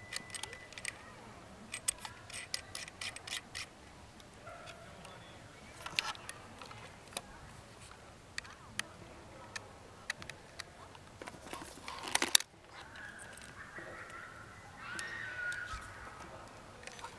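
Small clicks, taps and scrapes of hands handling cables, plugs and a battery pack on a table, with a louder rustling burst about twelve seconds in that stops suddenly.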